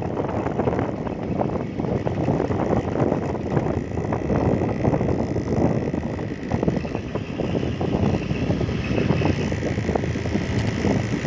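Wind buffeting the microphone over the steady noise of a moving vehicle.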